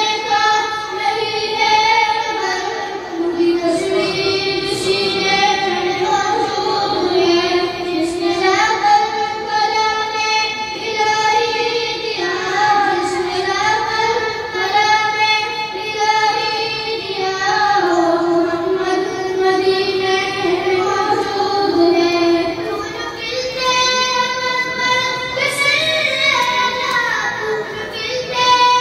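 A boy singing a naat, an Urdu devotional poem in praise of the Prophet, in long, drawn-out melodic phrases with held notes.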